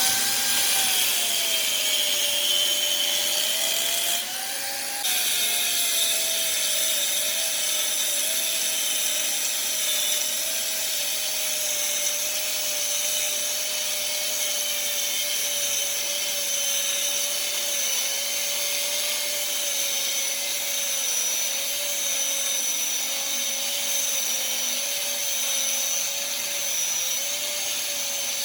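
A metalworking machine running steadily under load: a wavering mid-pitched hum over a dense, bright hiss. The hiss briefly drops away about four seconds in, then comes back.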